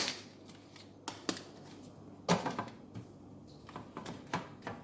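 Plastic food containers being handled and set onto refrigerator shelves: a few scattered clicks and knocks, the loudest right at the start.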